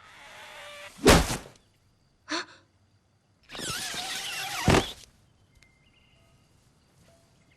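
Cartoon sound effects: a rushing whoosh ending in a loud thud about a second in, a short knock, then a second longer rush ending in another loud thud about five seconds in.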